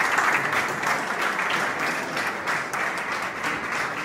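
Indoor audience applauding steadily, the clapping slowly dying down.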